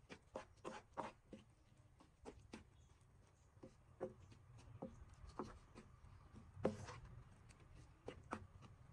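Wooden spatula stirring a wet blended coconut and sugar mixture in a nonstick frying pan, making faint, irregular clicks and short scrapes, one to three a second, as coconut toffee begins to cook.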